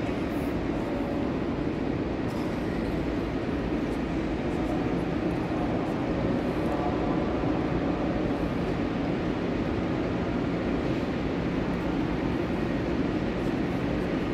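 Steady low rumble and hum of a large railway station's platforms, with trains standing at the platforms; even and unchanging, with no train passing close by.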